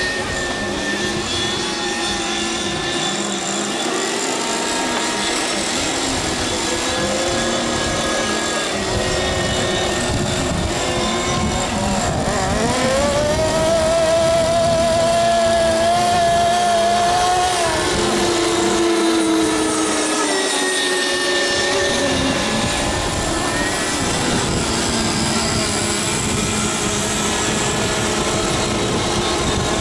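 Several FSR-O 7.5 racing model boats' 7.5 cc two-stroke glow engines running at high revs, a high whine of overlapping pitches that rise and fall as the boats run the course. About twelve seconds in, one engine climbs in pitch, holds high for about five seconds, then drops.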